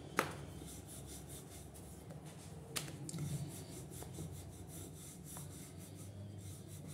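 Wooden rolling pin rolling out paratha dough on a floured countertop, giving a soft rubbing, scraping sound. There are two sharp knocks: one just after the start, which is the loudest, and one near three seconds.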